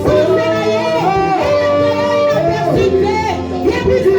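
Music: a voice singing long held and gliding notes over steady instrumental backing.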